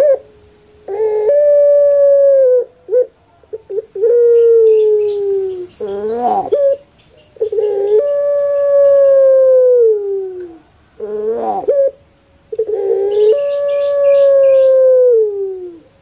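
A puter pelung (domesticated Barbary dove) singing its long drawn coo: four long, steady coos, each sliding down in pitch at the end, with short rolling, gurgling notes between them.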